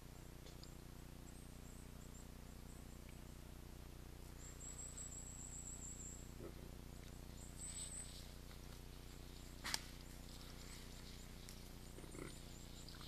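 Faint outdoor ambience: a small bird or insect gives two short, high-pitched trills, and a single sharp snap or knock comes about ten seconds in, over a steady low hum.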